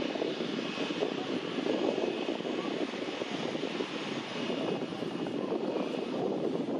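Airliner engines running, a steady rushing noise with no clear rise or fall.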